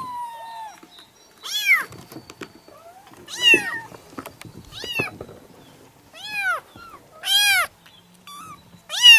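Kittens meowing: a string of short, high meows, one every second or two, each rising and then falling in pitch.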